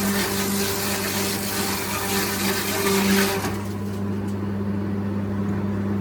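Sawmill machinery running with a steady hum; a rushing noise over it cuts off about three and a half seconds in, leaving the hum.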